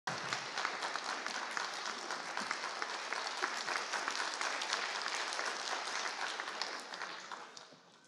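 Concert hall audience applauding, a dense patter of many hands clapping that dies away near the end.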